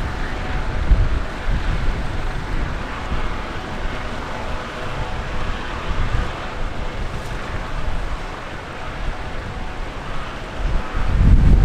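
Wind buffeting the microphone in gusts, heaviest near the start and again near the end, over a fainter steady hum.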